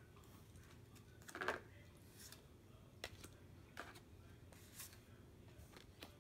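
Pokémon trading cards being handled, with a few faint slides and clicks of card stock against near silence.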